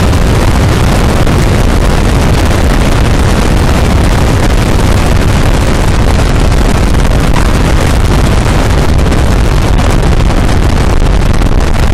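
Steady, loud rush of wind on the microphone over the engine of an open-cockpit Breezy homebuilt aircraft as it lands and rolls out along the runway.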